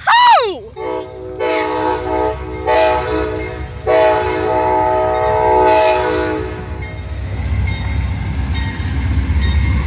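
Amtrak GE P42 Genesis diesel locomotive sounding its horn in several blasts: two longer, one short, then a long final blast, the grade-crossing pattern. A low diesel rumble builds as the locomotive pulls closer. A short rising-and-falling whistle-like note sounds at the very start.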